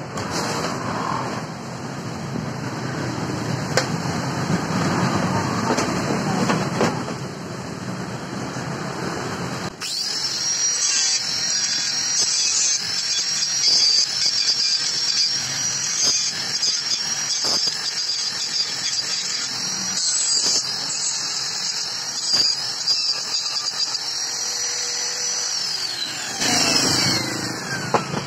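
Handheld angle grinder with a cutting disc cutting metal, a steady high whine over a rough grinding noise, after about ten seconds of rough background noise. Near the end it is switched off and the whine falls away as the disc spins down.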